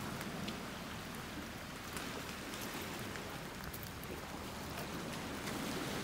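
Steady wash of small waves on a pebble and gravel shore, with faint scattered crunches of steps on the gravel.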